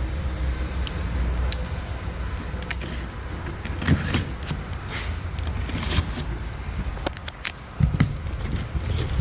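Exhaust headers being unboxed and handled: scattered metallic clinks, knocks and rattles at irregular intervals, a few louder ones, over a steady low rumble.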